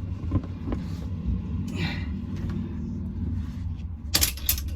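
Steady low rumble with scattered knocks as an oil filter wrench strains against a stuck oil filter, then a short cluster of sharp noises about four seconds in. Shortly afterwards the wrench is found snapped off at its weld.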